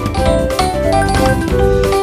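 Background music: a bright, upbeat tune with tinkling bell-like notes over a steady beat.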